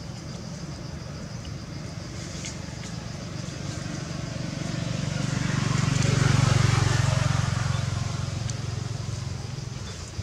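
A motor vehicle passing by: a low engine hum and road noise grow louder to a peak about six seconds in, then fade away.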